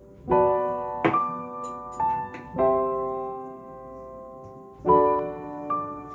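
Background piano music: slow chords and single notes struck every second or so, each left to ring and fade.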